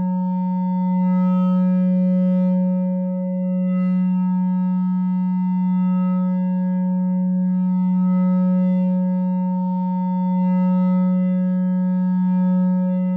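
No-input mixer feedback drone, a two-channel mixer looped through an effect pedal: a steady low electronic tone with a cluster of higher overtones held above it. Faint hiss swells in and out every few seconds.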